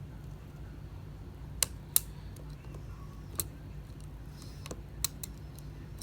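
A few short, light clicks and taps as a spudger pries flex-cable connectors off the iPhone XR's logic board, with two sharper clicks about two seconds in. A low steady hum runs underneath.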